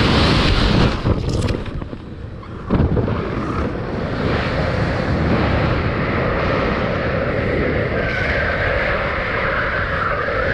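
Rushing wind buffeting a body-worn camera's microphone during a rope-swing free fall and swing, with a sudden louder gust a little under three seconds in.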